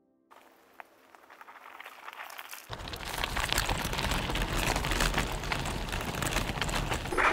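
Off-road electric scooter ridden over a dirt trail: tyre noise crackling over dirt and twigs mixed with wind rumble on the microphone, growing steadily louder through the first three seconds.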